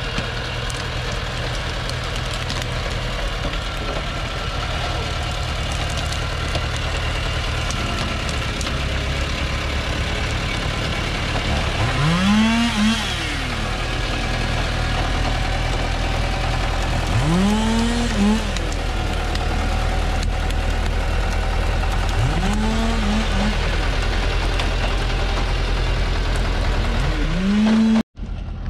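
Thaco four-wheel-drive truck's diesel engine running hard under a heavy load of acacia logs in mud, with the revs surging up sharply and dropping back four times.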